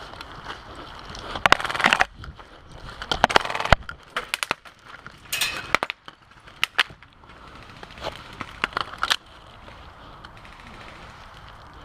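Airsoft gunfire: two short rapid-fire bursts in the first four seconds, then scattered single shots and sharp snaps.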